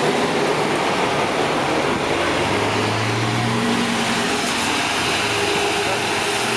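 Scania K410 coach running: a steady mix of engine and road noise, with a low engine tone that strengthens briefly about halfway through.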